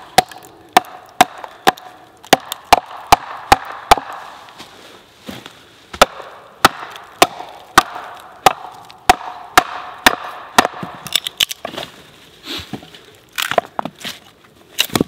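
Wooden baton striking the back of a small trapper's hatchet, driving its bit into the side of a log to split it, about two sharp knocks a second. The blows thin out past the middle, and near the end come a few irregular cracks as the log splits apart.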